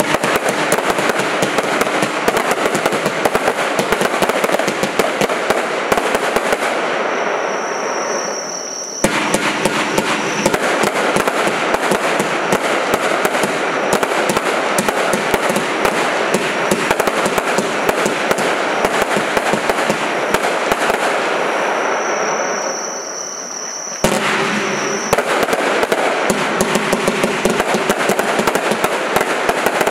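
Signature Show compound fireworks cake firing its 216 shots in a fan: rapid, continuous volleys of shots. The volleys ease briefly twice, about eight and twenty-three seconds in, then restart abruptly, with a high steady whistle around each lull.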